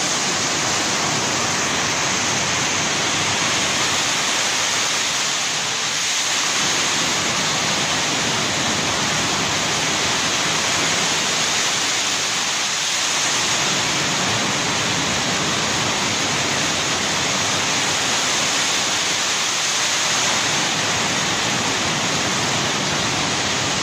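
Fountain water jet splashing steadily into a pool: a dense, even rushing of falling water.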